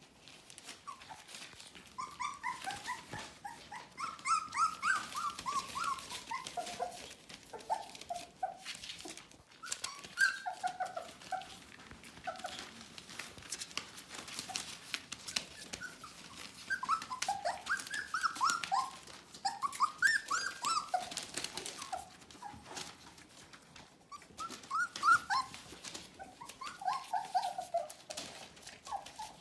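Young Border Collie puppies whining and yipping in short, high-pitched squeaks that come in repeated bouts, with newspaper rustling under their paws.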